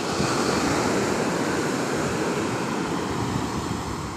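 Sea wave washing onto the shore: a rush of surf that swells at the start and slowly dies away.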